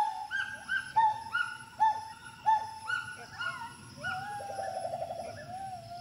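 Gibbon calling: a run of short hooting notes about two a second, each rising and then dropping in pitch, leading about four seconds in into a longer note with a quick wavering trill that settles into a steady hoot. A thin, steady high whine runs behind.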